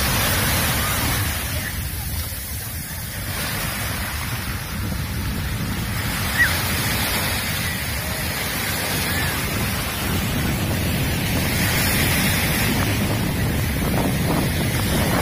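Small waves breaking and washing up a sandy beach, surging and easing, with wind buffeting the microphone. A brief sharp sound stands out about six seconds in.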